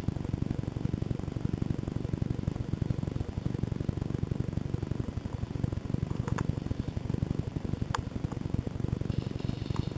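Low, fluttering rumble of wind and handling on a camera microphone, with two faint sharp clicks about six and eight seconds in.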